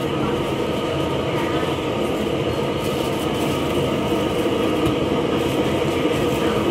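Steady rumbling background noise with a few faint clinks.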